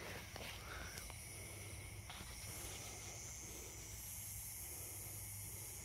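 Faint, steady high-pitched chirring of night insects, a cricket-type chorus, with a few faint ticks.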